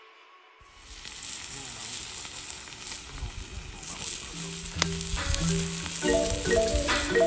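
Meat sizzling and spitting on a Yokozawa teppan, a thick iron griddle plate, starting suddenly under a second in. About halfway through, background music with short mallet-like notes comes in over it.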